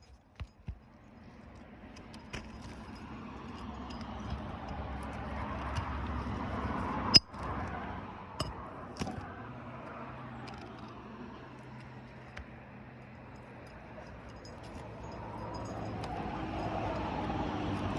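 A passing vehicle's rushing noise swells, fades and swells again near the end. A few sharp metallic clinks sound over it, the loudest about seven seconds in.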